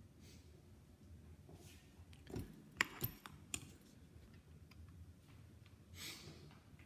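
Quiet handling noise: a few sharp clicks and knocks between about two and a half and three and a half seconds in, then a short soft rush of air near the end.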